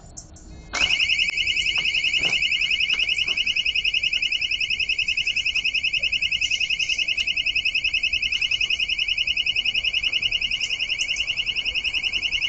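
Electronic alarm siren switching on suddenly about a second in and then sounding steadily: a loud, high-pitched, rapidly pulsing warble.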